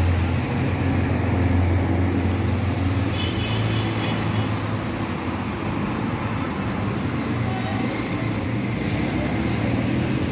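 Steady low engine rumble with a constant hum, alongside general street noise.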